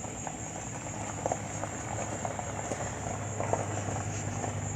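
Insects, likely crickets, chirring steadily at a high pitch over a low, steady hum, with a few faint scattered ticks and rustles.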